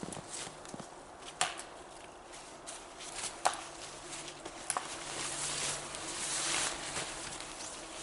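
A tarp rustling and crinkling as it is unfolded and shaken out by hand, growing louder in the second half. There are three sharp clicks in the first five seconds.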